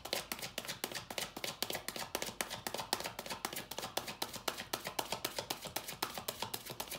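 Tarot deck being shuffled by hand: a rapid, even patter of cards slapping together, about seven a second.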